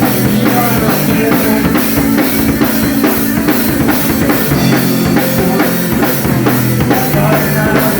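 Rock and roll band playing live, loud and without vocals: a drum kit keeps a steady beat with bass drum and snare under sustained low instrument notes.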